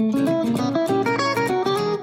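Background music: plucked acoustic guitar playing a quick melody.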